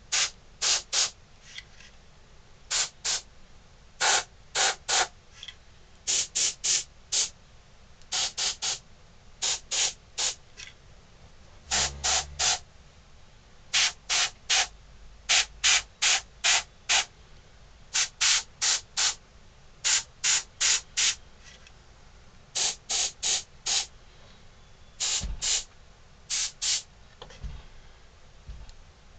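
Gravity-feed airbrush hissing in short puffs, two to four quick puffs at a time, with a pause of about a second between groups, as it sprays black spots of paint.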